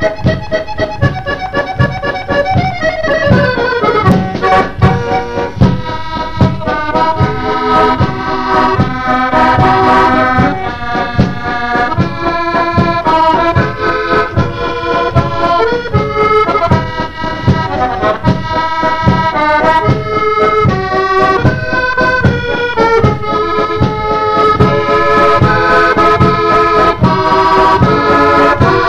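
Accordion playing a musette waltz over a steady drum-kit beat, with a quick downward run about three seconds in.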